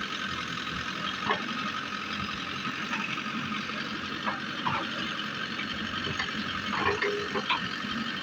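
JCB backhoe loader's diesel engine running steadily, with a few short knocks and clanks.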